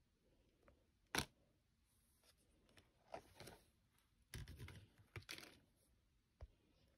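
Faint handling of a plastic takeout food container: a sharp click about a second in, then a few seconds of soft plastic crinkling and clicking as its clear lid is unsnapped and taken off.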